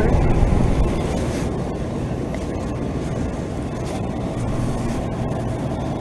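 Ruud Achiever heat pump outdoor units running in heat mode: a steady low hum with the even rush of the condenser fan.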